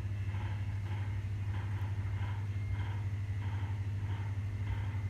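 A steady low hum, with fainter sounds higher up repeating about twice a second.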